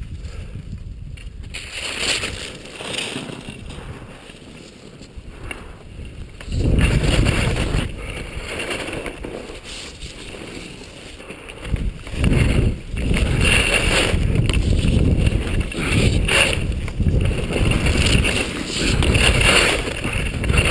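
Skis sliding and scraping over packed snow at speed, with wind buffeting the camera's microphone. The wind rumble grows loud about six seconds in and again from about twelve seconds on.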